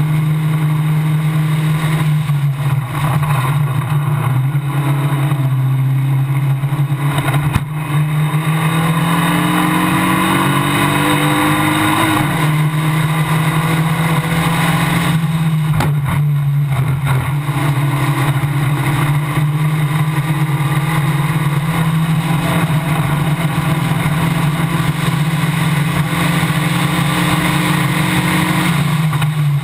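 Formula Basic single-seater race car's engine running hard at racing speed, heard onboard from just behind the driver. The engine note holds mostly steady, with a rising pitch about a third of the way in and a few short dips.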